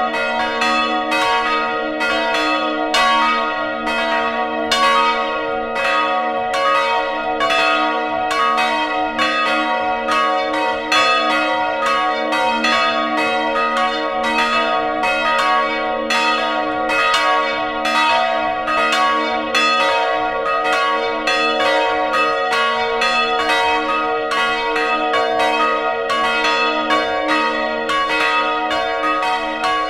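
Several church bells swinging together in a full peal, their clappers striking a few times a second in an uneven, overlapping pattern while the tones ring on over each other. Heard close up inside the belfry.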